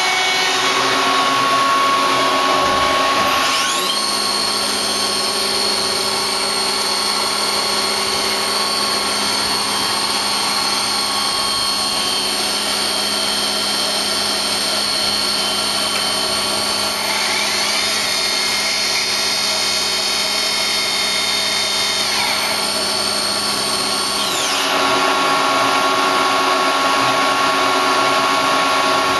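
Star SR20R CNC Swiss-type lathe running through a program: a steady machine whine of several tones over fan-like hiss. The whine's pitch glides up and down as speeds change, about four seconds in, again around the middle and a little before the end.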